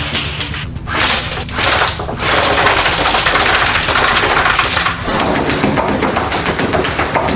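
Airsoft rifle firing fast full-auto bursts, a dense rapid clatter, from about a second in until about five seconds in. Background music plays before and after.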